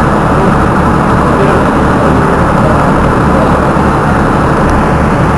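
Engine of the Alizé passenger shuttle boat running steadily while moored at the quay, a loud, even low-pitched rumble.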